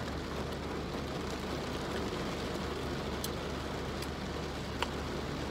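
Steady rain on a car's roof, heard from inside the cabin, over a low steady hum, with a few faint clicks in the second half.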